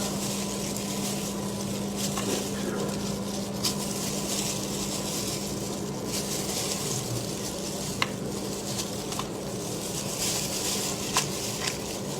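Hands pulling apart a cooked spiced sheep's head: a steady crackling hiss, with a few sharp clicks scattered through it.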